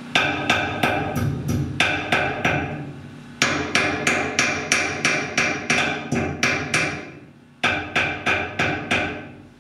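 Hammer blows on steel, about three a second, each ringing briefly, in three runs with short pauses: a stainless steel pin being driven out of a sailboat centreboard's pulley fitting. The loudest run starts about a third of the way in.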